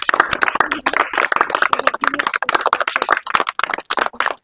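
A group of people clapping, many fast overlapping claps, with some voices mixed in.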